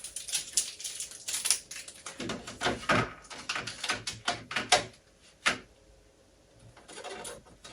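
Rapid irregular clicks, taps and rustles of a new fridge and its plastic fittings and packaging being handled, with one sharp knock about five and a half seconds in, then a short lull.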